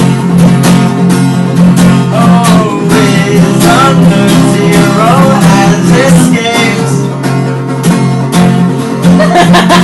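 A guitar-led song: plucked acoustic guitar with a voice singing the melody over it.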